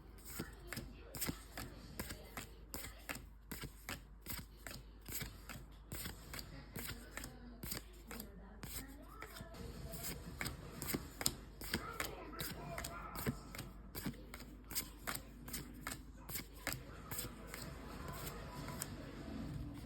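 Trading cards being handled and flipped through one after another, a run of crisp flicks and snaps two or three a second.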